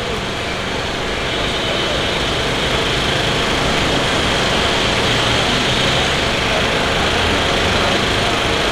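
Steady, loud mechanical drone of a running engine, with a constant high whine that comes in about a second in.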